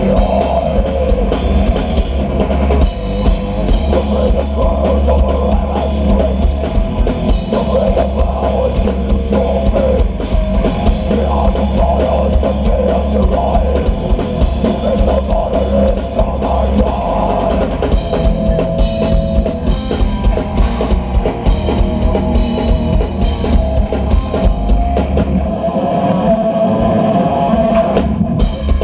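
Death metal band playing live through a PA, heard from the audience: distorted electric guitars, bass and a pounding drum kit. The low end thins out briefly near the end, then comes back in.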